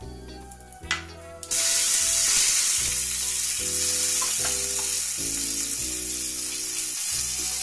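Dry red chillies and whole coriander seeds sizzling in hot oil in a small frying pan for a tadka. The sizzle starts suddenly about a second and a half in and carries on steadily, with soft background music underneath.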